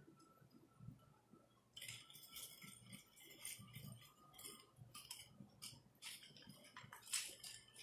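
Faint metallic clinking and rattling of a nunchaku's chain as it is swung and spun, a rapid, irregular string of clinks starting about two seconds in.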